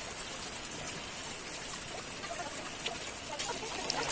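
Hot oil sizzling in an iron kadhai, a steady hiss with scattered crackles that grow more frequent near the end as the oil starts to bubble.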